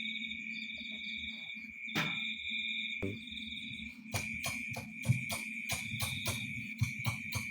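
Insects, likely crickets, trilling steadily over a low hum. About halfway through, a run of sharp clicks starts, about five a second.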